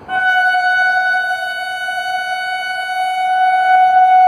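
WAP7 electric locomotive's horn sounding one long, loud, steady blast as the train approaches.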